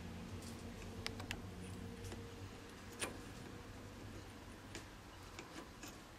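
Faint scattered metal clicks and ticks as the tool bit in a Logan 200 lathe's tool holder is moved up to the closed chuck jaws to find centre height. A faint low hum fades out about two and a half seconds in.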